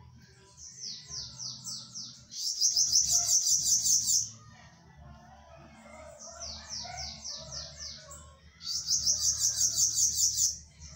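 A caged bananaquit (sibite) singing: a quick run of high, descending chirps that breaks into a loud buzzy trill lasting about two seconds, twice over. This is the song its keepers call the 'risadinha' (little laugh).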